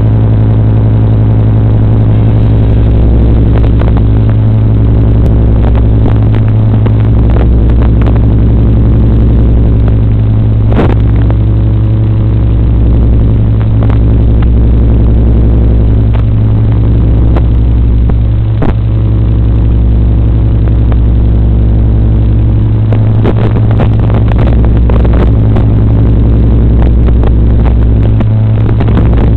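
Loud, steady droning buzz carried over an FPV quadcopter's analog video link, with scattered crackles and clicks of interference.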